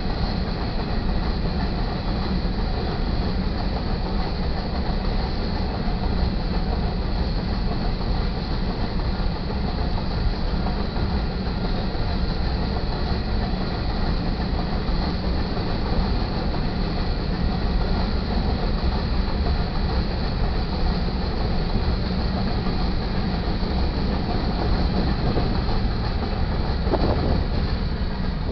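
Covered hopper cars of a Union Pacific freight sand train rolling past over a grade crossing: a steady rumble of steel wheels on rail.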